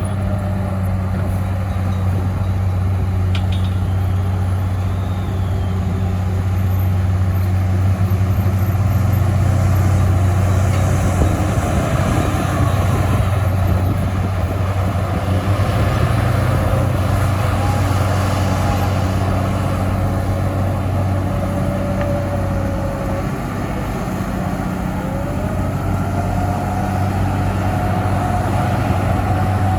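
Heavy diesel engines of dump trucks and a bulldozer running steadily with a deep drone. A thin whine rises in pitch near the end.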